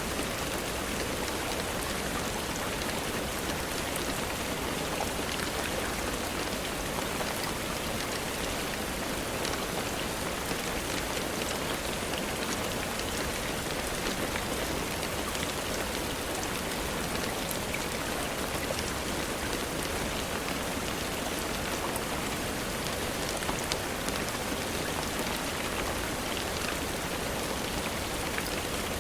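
Steady rain falling, an even hiss with faint scattered ticks of single drops.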